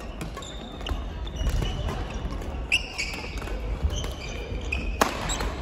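Badminton doubles rally: rackets hitting the shuttlecock again and again, with shoes squeaking on the wooden court floor. The loudest hit comes about five seconds in.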